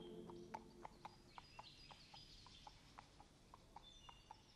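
Faint clip-clop of horses' hooves at a walk, about four hoof falls a second, with faint birdsong.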